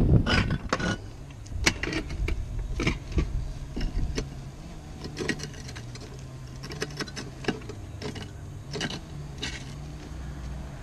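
Scattered clicks, taps and scrapes of gloved hands handling broken concrete roof-tile pieces, a caulking gun and a length of wire, loudest about the first second, over a steady low hum.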